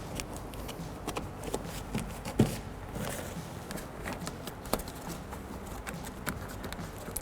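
Plastic door vapor barrier being pressed down by hand onto butyl tape: scattered light crinkles and taps, with one louder knock about two and a half seconds in.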